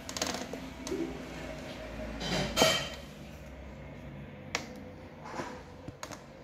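Handling noise as a carbon road bike in a work stand is moved and turned: rustling and scraping, one sharp knock about two and a half seconds in, and a couple of brief clicks later on.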